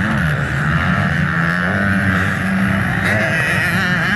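Several motocross dirt bikes racing around a dirt track, their engines overlapping and rising and falling in pitch as the riders work the throttle.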